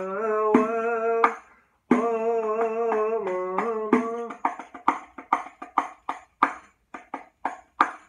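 A male voice sings a line of an Arabic muwashshah in long, ornamented held notes over strokes on a riq (Arabic tambourine with jingles), in the 13/4 Murabba' rhythm. The singing stops a little before halfway, and the riq carries on alone, about two to three strokes a second, the jingles rattling with each.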